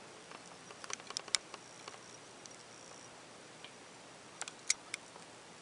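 Faint scattered clicks and taps from a handheld camera being moved and handled, a small cluster about a second in and another near the end, over low room hiss.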